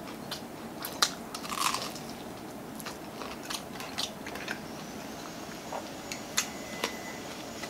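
Close-up chewing of crispy fried chicken: sharp, crackly crunches of the fried coating, coming thick in the first couple of seconds and more sparsely after.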